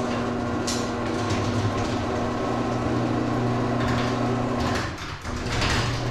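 Electric garage door opener running as the sectional garage door rolls down: a steady motor hum with rattling from the door. The hum breaks off briefly about five seconds in, then resumes.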